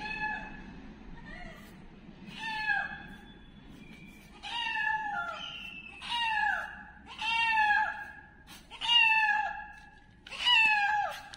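Kitten meowing over and over in high, repeated calls, each bending down in pitch at the end. The meows come about once a second and grow louder as they go.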